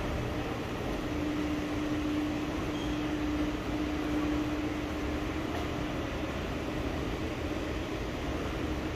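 Steady hum and hiss of ventilation and machinery in a train station concourse. A steady hum tone fades out about six seconds in.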